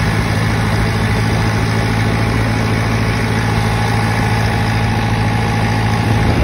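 John Deere 2510 tractor engine running steadily under way, heard from the operator's seat just behind the upright exhaust stack. A steady higher whine joins about halfway through.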